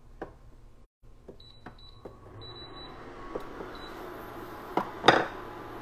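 Portable induction cooktop being switched on: a few short high-pitched beeps from its touch buttons, then its cooling fan starts with a steady whir as it heats. A couple of sharp knocks near the end.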